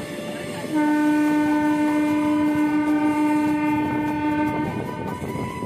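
Indian Railways train's locomotive horn sounding one long blast of about four seconds, starting under a second in, over the steady rumble of the moving train.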